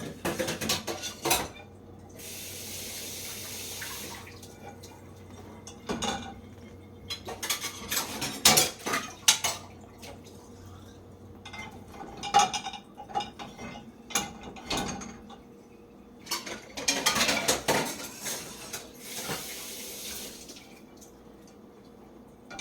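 Steel spoons and dishes clinking and clattering as they are loaded into a dishwasher's racks and cutlery tray, in many separate knocks. There are two short spells of running water, about two seconds in and near the end.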